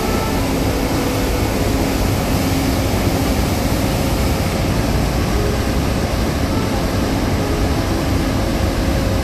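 Steady, loud rush of a ferry's propeller wash churning the water at the stern, mixed with a deep rumble from the ship's engines.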